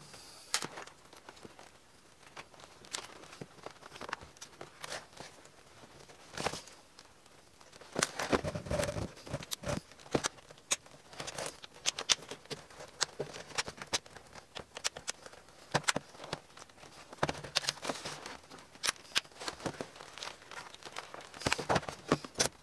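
Light, scattered clicks, taps and rustles of hands handling a Samsung laptop as its plastic lid is closed and pressed shut along the edges.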